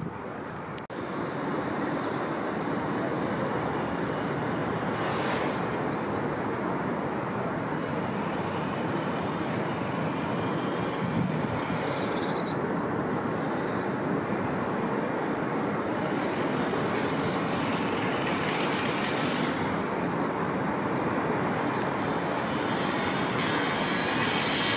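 A train running past on the railway line, a steady rumble of wheels on rails beginning about a second in, with faint high wheel squeal now and then.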